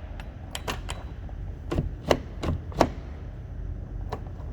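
Truck door lock and latch clicking as the freshly repaired lock is worked with the key: a run of sharp clicks at uneven spacing, some in quick pairs. The lock is operating again after the repair.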